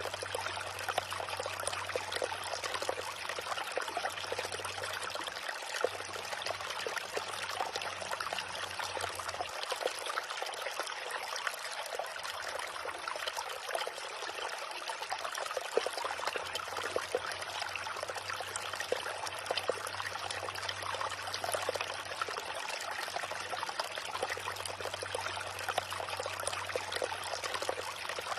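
Small river running over stones, a steady babbling and trickling of water.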